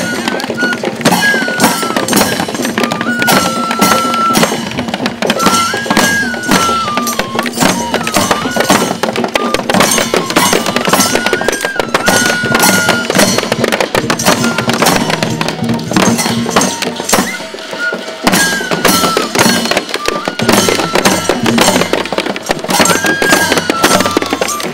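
Traditional Sri Lankan marching band playing: double-headed barrel drums, waist drums and small hand cymbals beat a brisk, steady rhythm under a melody of long held notes that step up and down, blown on curved brass horns.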